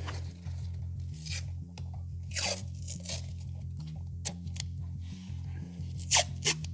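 Background music with a steady, rhythmic bass line, over short rustling and tearing rasps from hands working wiring and trim panels, the loudest two close together near the end.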